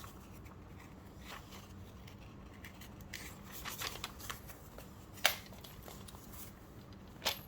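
Paper being trimmed and handled on a craft table: scattered soft rustles and clicks, with a sharper click about five seconds in and another near the end.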